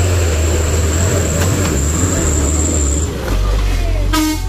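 Heavy vehicle's diesel engine running low and steady under load on a steep climb, with a thin high whine that stops about three seconds in. A horn sounds near the end.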